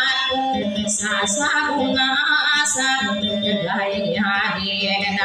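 A woman sings in a wavering, ornamented vocal line into a microphone, dayunday style, over a strummed acoustic guitar.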